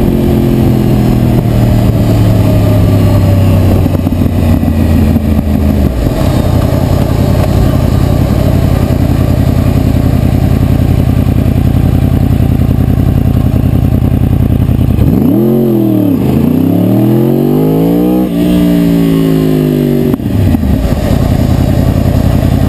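Yamaha R1's crossplane inline-four through a Yoshimura R-77 exhaust, its pitch falling steadily for the first six seconds as the bike slows down, then fading under steady wind rush on the microphone. From about fifteen seconds in, the engine rises and falls in pitch twice over five seconds before dropping back under the wind noise.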